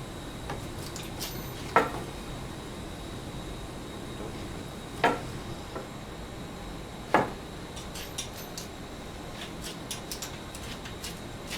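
Three sharp knocks and a scatter of lighter clicks as a wooden workpiece and jig boards are set down and positioned on a table saw's top, with the saw switched off.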